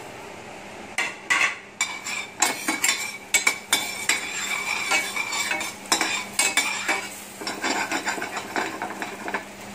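Metal spoon scraping and clinking against a hot stainless steel frying pan as a knob of butter is pushed around, melting with a light sizzle. The scraping starts about a second in and goes on in irregular strokes.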